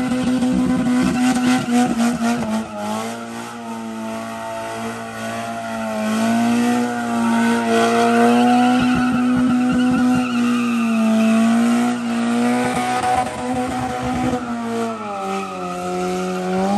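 Mazda Miata's engine held high in the revs, the pitch wavering up and down, as the car spins donuts with its tyres spinning on wet pavement. Right at the end the revs drop away.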